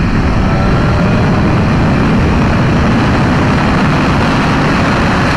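BMW S1000RR inline-four running hard at high highway speed, heard through a helmet microphone under heavy steady wind rush. The bike is close to the 124 mph limit it holds until its first service.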